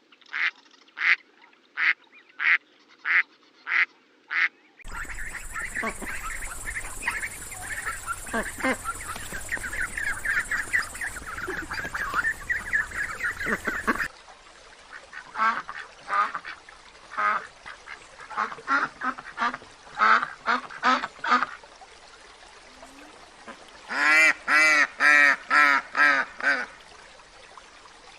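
Domestic ducks and geese calling. First comes a run of evenly spaced calls, about two a second. Then a dense chorus of many birds calling over one another with background noise, then scattered calls and a loud burst of calls near the end.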